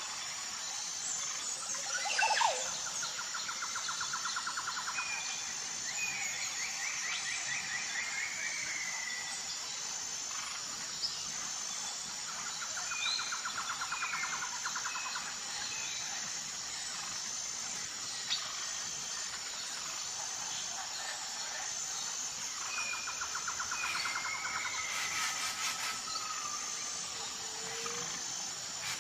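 A songbird singing the same phrase about four times, each a few short notes followed by rapid trills, over a steady high insect drone.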